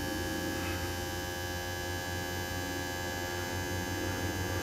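HWH hydraulic leveling system's pump motor running with a steady hum and whine, driving the jack down onto its rubber pad.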